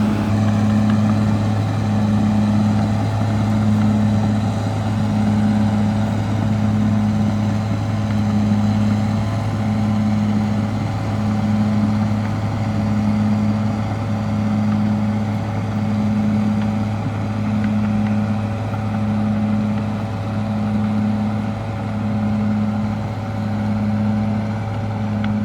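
Caterpillar D6R XL bulldozer's diesel engine running steadily, its low hum pulsing evenly about every second and a half.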